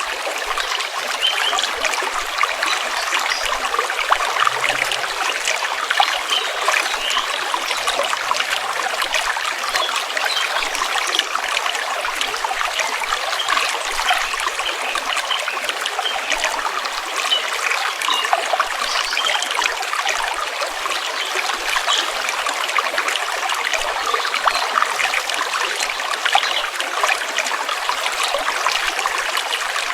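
Stream water flowing and trickling, a steady, even rush made of many small splashes and gurgles.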